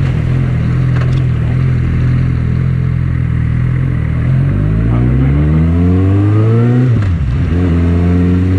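Suzuki GSX650F inline-four engine running steadily, then accelerating with rising pitch from about halfway in. It drops sharply at an upshift near the end, then pulls again. Wind noise on the microphone lies over it.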